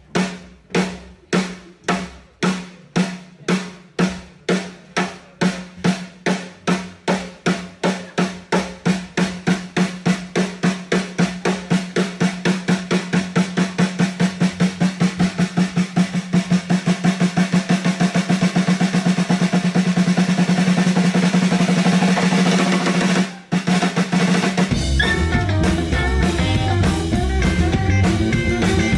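Snare drum struck in an even beat that speeds up steadily until it becomes a drum roll, getting louder as it goes. After a brief break near the end, the full rock band comes in with bass and guitar.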